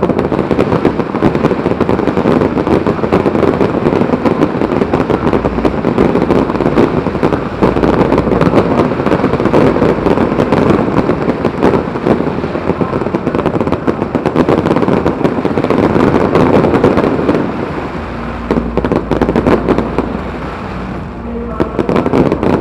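A dense fireworks barrage: many shells and crackling effects pop and crackle at once, merging into a continuous rattle. It thins out for a few seconds near the end, then picks up again.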